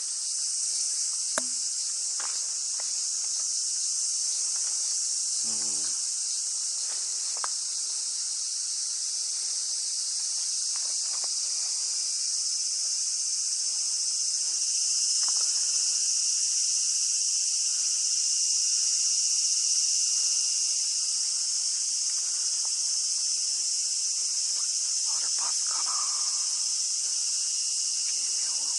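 Cicadas singing in a loud, continuous chorus: a high shrill drone that grows somewhat louder around the middle.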